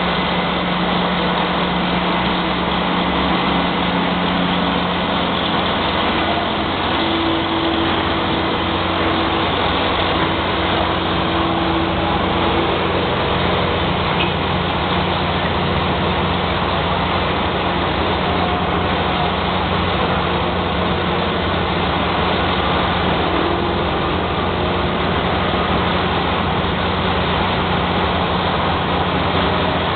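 Mobile crane's diesel engine running steadily while it hoists a steel column, a continuous low hum.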